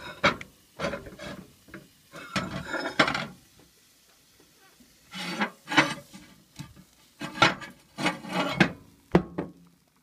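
A bowl scraping and rubbing against a microwave's glass turntable as it is shifted and lifted out, in several short irregular bursts with pauses between them.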